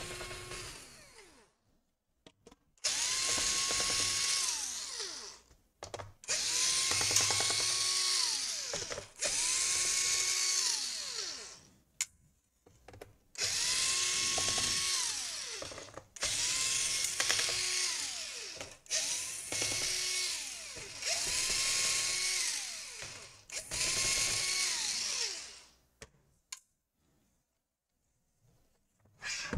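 Electric drill-driver spinning in about eight separate bursts of two to three seconds each, every one winding up, running and winding down, as it works at a tight laptop screw that won't come out.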